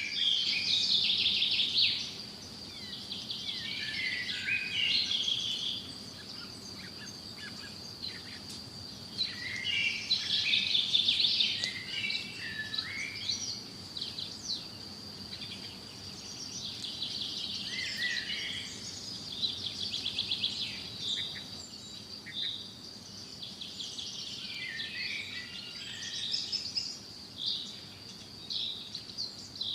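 Several songbirds chirping and trilling in overlapping phrases that come in clusters every few seconds, over a steady high-pitched tone.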